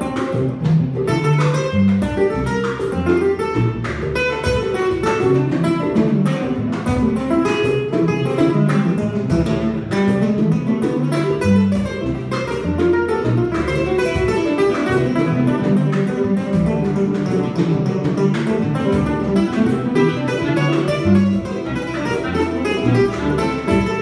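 Small Cuban-style band playing an instrumental: a guitar picking the melody over a plucked upright bass and a cajón keeping a steady beat.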